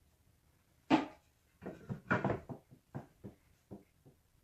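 Wooden knocks as a redwood board is handled and fitted into place against the wall: one sharp knock about a second in, a quick cluster of knocks, then a few lighter, spaced taps that die away.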